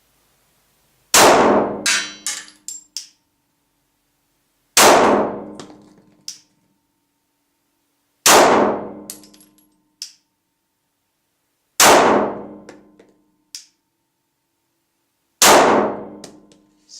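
Five single shots from a Glock pistol, fired slowly about three and a half seconds apart. Each shot has a ringing, metallic decay and a few small clinks after it.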